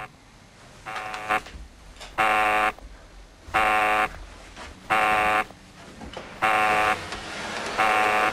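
Electronic alarm buzzer sounding in short, even buzzing beeps, each about half a second long and coming every second and a half or so. The beeps grow louder after the first two.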